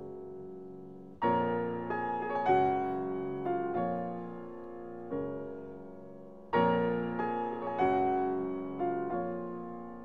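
Background music: solo piano playing a slow piece, notes and chords struck and left to fade, with louder phrases starting about a second in and again just past halfway.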